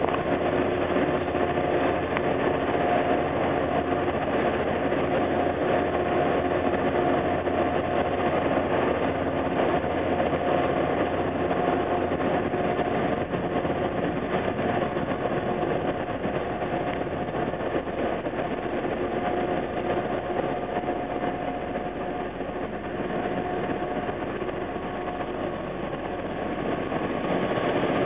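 Irish Rail 201 Class diesel locomotive, with an EMD 12-710 two-stroke V12, running as it draws slowly into the platform. It gives a steady engine drone that grows deeper and louder as the locomotive comes close near the end.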